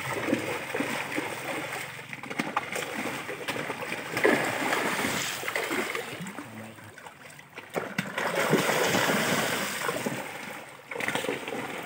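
Large fish thrashing at the surface of a river, sending up repeated irregular splashes of water. The splashing is loudest about four seconds in and again in a longer surge in the second half.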